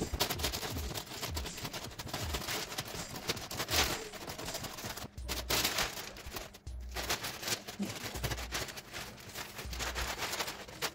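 Thin plastic sheeting crinkling and rustling as a protective bag is pulled off a large flat-screen TV, a dense crackle with a few short pauses.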